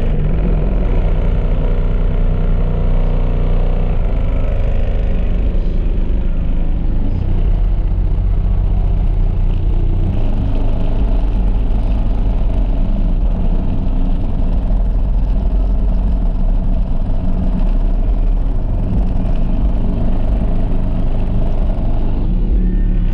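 Car audio subwoofers in a quarter-wave T-line enclosure playing very loud, steady deep bass, heard outside the vehicle close to its body. The bass notes shift about ten seconds in.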